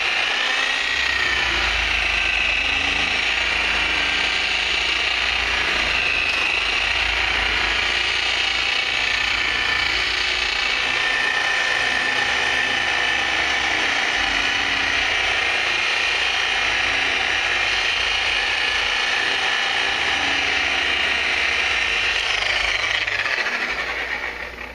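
Power buffer running steadily, its pad polishing compound into freshly painted car paint, with a whine that wavers a little in pitch. Near the end it is switched off and winds down.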